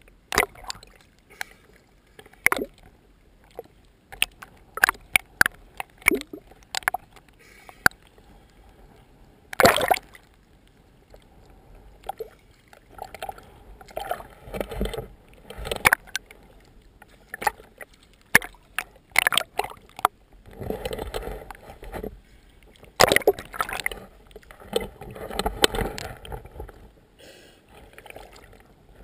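Small waves slapping and sloshing at the shoreline in irregular splashes, with many sharp knocks and clicks scattered through.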